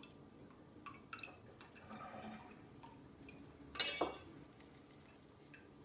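Homemade apple brandy dripping and trickling out of strained fruit into a glass jar, with one sharp glass clink about four seconds in.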